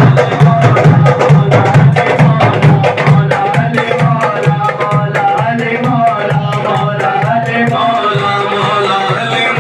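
Men singing a devotional naat into microphones, carried over a PA, with a small hand drum struck with the fingers and palms. The drum strokes are densest in the first few seconds, then thin out as the singing comes to the fore.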